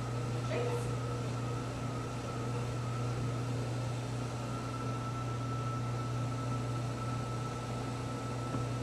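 Steady low mechanical hum with a thin steady high whine over it, like a running household appliance.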